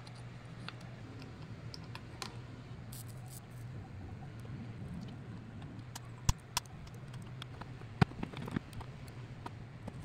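Small clicks and taps of hands working on a circuit board and metal heatsink, over a low steady hum. A few sharp snaps stand out, about six seconds in and again at eight, as side cutters clip component leads on the board.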